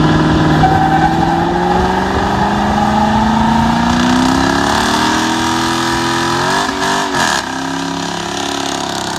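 Dodge Charger doing a burnout: the engine is held at high revs, its pitch climbing over the first few seconds and dipping briefly about seven seconds in, while the spinning rear tyres add a steady hiss.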